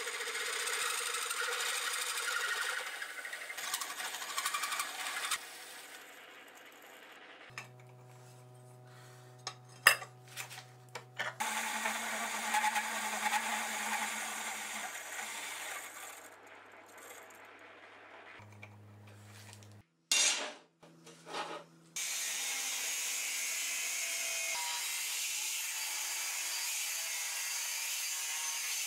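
A hole cutter turning in a machine spindle cuts through a steel bar under coolant, in two stretches with quieter pauses and a few clicks between. Then, about three quarters of the way in, an angle grinder with a cutting disc runs steadily, cutting steel bar.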